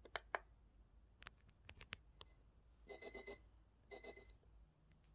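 A few sharp clicks, then a digital alarm clock's alarm beeping: two short bursts of rapid high beeps about a second apart.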